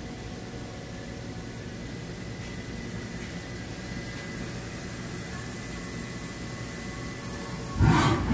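Haas VF-4SS vertical machining center running: a steady mechanical hum with a faint high whine. A loud burst of noise comes near the end.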